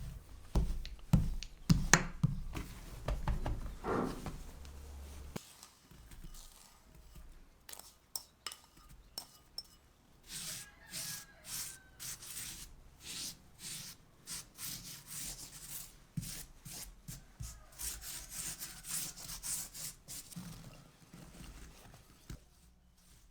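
Kitchen handling sounds: a series of knocks and thuds in the first few seconds, then repeated rubbing or scraping strokes, about one or two a second, as something is worked over a hard surface.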